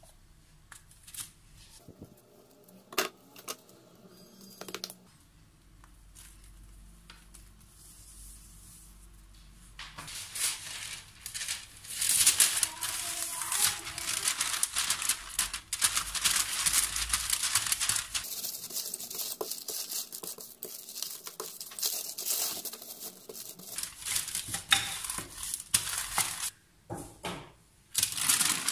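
Baking parchment crinkling and rustling under a wooden rolling pin as shortcrust dough is rolled out between two sheets, loud and continuous from about a third of the way in, after a few light knocks.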